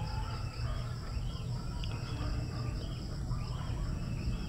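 Outdoor ambience: insects buzzing in a steady high drone while a bird repeats short chirps every half second or so, over a low steady rumble.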